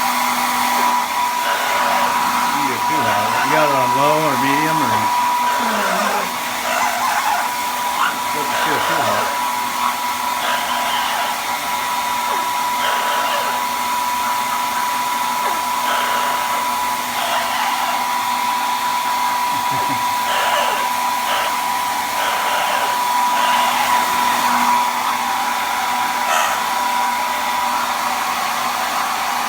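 Handheld hair dryer blowing steadily with a constant high whine. A brief wavering, voice-like sound rises over it about three seconds in.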